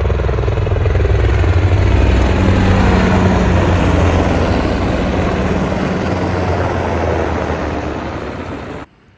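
A loud, steady engine drone with deep steady tones and a slowly falling pitch. It cuts off suddenly near the end.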